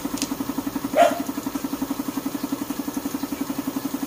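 A small engine or machine running steadily, a rhythmic pulsing of about twelve beats a second, with one short sharp sound about a second in.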